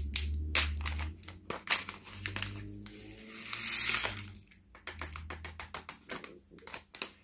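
Small clear plastic snap-lid pots of nail crystals being handled: a run of sharp plastic clicks and taps, with a brief rustle about three and a half seconds in.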